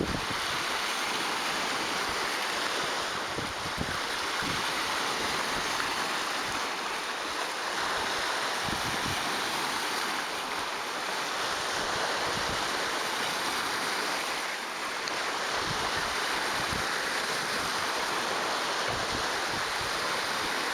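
Lake Superior waves washing and breaking against shoreline rocks: a steady rushing surf that swells and eases every few seconds, with scattered short low thumps.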